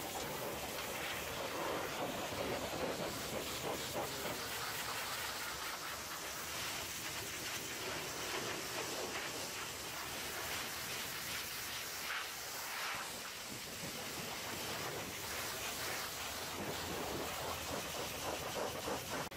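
High-pressure jet of hot water from a pressure-washer lance hitting a semi truck's fuel tank and chassis, a steady hiss and splatter of spray on metal.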